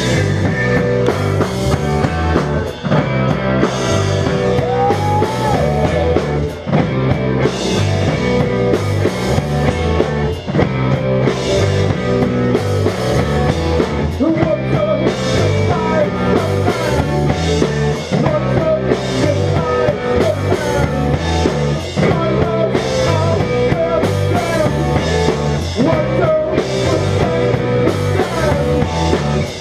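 Live rock band playing loud, with electric guitars over a drum kit keeping a steady beat.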